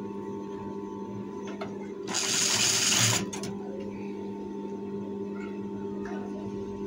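JUKI industrial sewing machine stitching a short run of about a second, starting about two seconds in. Underneath is a steady electric hum.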